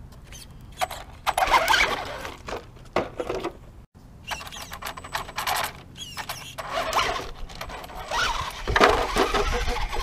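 Traxxas Stampede 4x4 VXL electric RC truck's brushless motor whining in irregular bursts as it is throttled, with its tyres scraping and scuffing over stone. The loudest bursts come early and again near the end.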